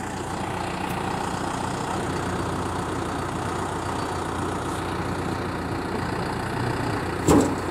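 Tractor engine running steadily while the front loader is worked. A brief louder noise comes near the end.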